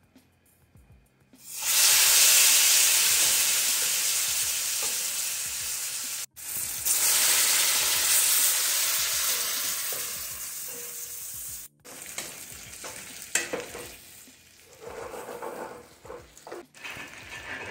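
Wet boiled dumplings hitting a pan of hot browned butter and sizzling loudly, starting about a second and a half in. The sizzle dies down near the end while a wooden spoon stirs and knocks the dumplings around the pan.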